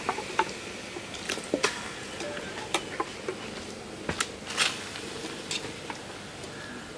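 Raw goat meat pieces being handled and scooped by hand in a steel bowl, with scattered wet squishes and small clicks.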